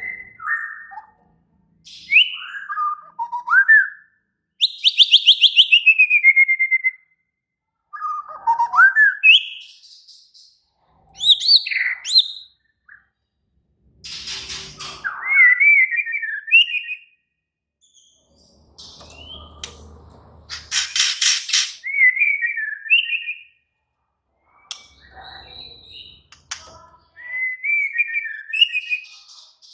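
A white-rumped shama (murai batu) singing its agitated, aggressive song. Loud whistled phrases slide up and down, broken by harsh rapid rattles, in bursts of a few seconds with short pauses between them.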